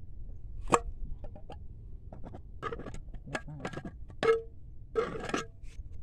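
Metal scissor blades scraping and clinking against a thin tin can, a string of sharp hits and rasping strokes, the can ringing briefly after the harder ones. The sharpest clink comes just under a second in.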